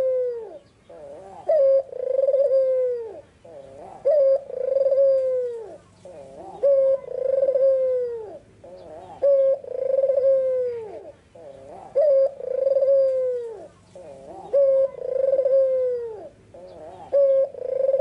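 A white, red-eyed ringneck (Barbary) dove cooing over and over, about one phrase every two and a half seconds: each a short sharp note followed by a long rolling coo that falls in pitch at the end.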